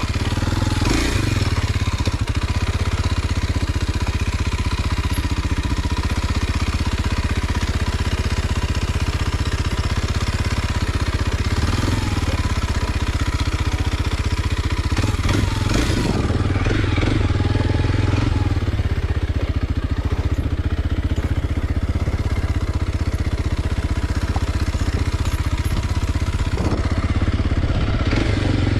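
Kawasaki KLX230 SM's single-cylinder four-stroke engine running steadily as the motorcycle is ridden.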